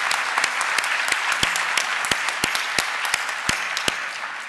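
Audience applauding, a dense patter of many hands with a few sharper individual claps standing out, beginning to thin out near the end.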